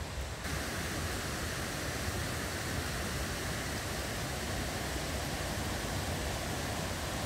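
Steady rushing water of a waterfall, which turns louder and brighter about half a second in.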